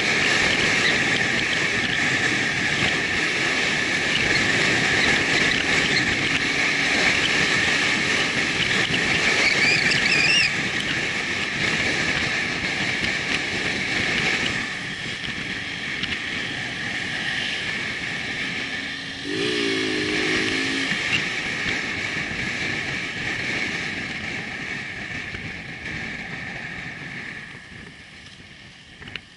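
Motorcycle riding along a rough road: steady wind and road noise over the engine. A short horn-like pitched tone sounds about two-thirds of the way in, and the noise fades near the end.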